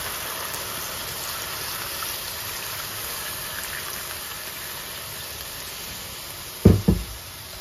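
Snail curry sizzling in a hot steel kadai with a steady hiss as a stream of water is poured in. Near the end come two loud knocks close together.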